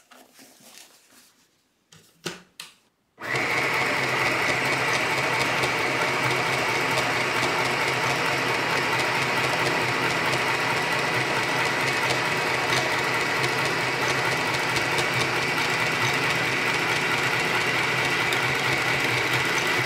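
Easymaxx compact electric sewing machine running steadily, stitching through thick denim. A couple of small clicks come first, the motor starts about three seconds in with a steady high whine over a low hum, and it stops just before the end.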